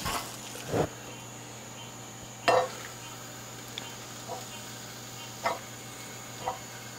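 Knocks and clicks from handling a closed ceramic kamado grill: a dull thump under a second in, a sharper, louder knock about two and a half seconds in, then several fainter clicks about a second apart, over a faint steady hum and a thin high whine.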